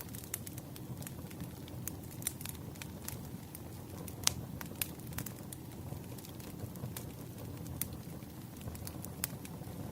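Wood fire crackling: scattered sharp pops over a low, steady rumble, with the loudest pop about four seconds in.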